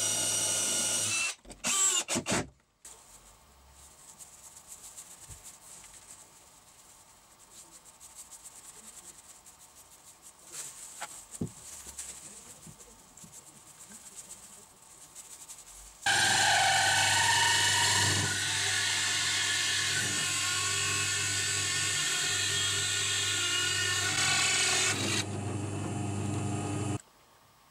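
A cordless drill runs briefly, drilling into a plywood box, followed by a few short bursts. After a long quiet stretch of faint rubbing and handling, a drill press with a hole saw runs steadily for about eleven seconds, cutting round holes in plywood, then cuts off near the end.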